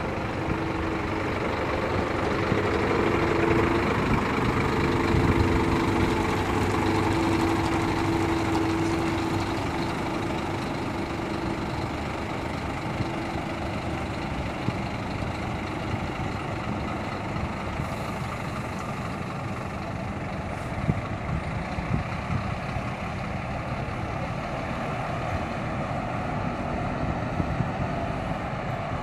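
Scania K360 coach's diesel engine pulling away and driving off: a steady engine drone, loudest a few seconds in, that fades into road noise as the bus moves away.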